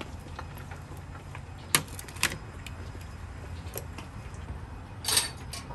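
A steady low rumble with a few sharp clicks: two close together about two seconds in and a louder short clatter near the end.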